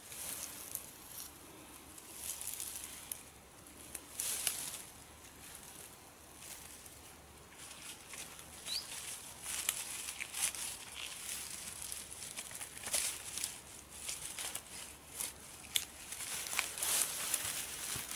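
Dry grass, reeds and dead branches rustling and crackling in irregular bursts as gloved hands move wood and set it onto a wood pile.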